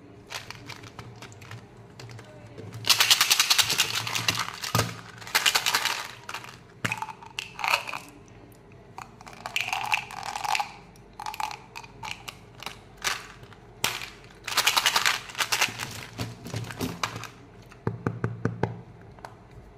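Small hard candies rattling inside plastic tubes in several bursts as the tubes are shaken, and spilling into a palm, with clicks and taps of plastic lids and packaging being handled.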